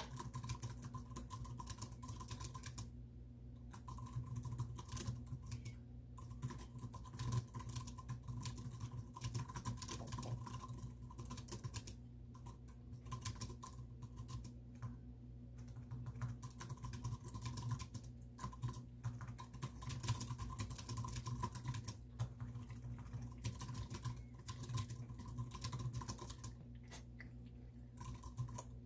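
Typing on a computer keyboard: a continuous run of keystrokes broken by several brief pauses, over a steady low hum.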